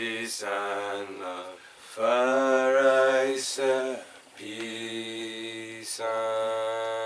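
Unaccompanied voice chanting a Rastafari devotional chant in long held notes, about four of them with short breaks and a hissed consonant between; the note around the middle is the loudest.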